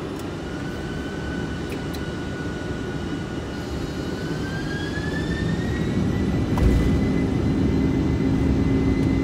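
Boeing 747-400ERF's four jet engines spooling up for takeoff, heard from the cockpit: a whine rising in pitch over the first six seconds, then holding steady as the engine noise grows louder. A thump about six and a half seconds in, after which a low steady hum joins.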